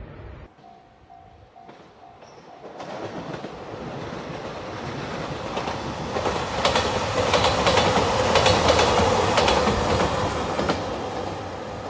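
JR Shikoku 2700 series diesel express train passing: it builds up from about three seconds in, is loudest about two-thirds of the way through with rapid clickety-clack of wheels over rail joints, then fades. In the first few seconds a faint level-crossing warning bell dings about twice a second.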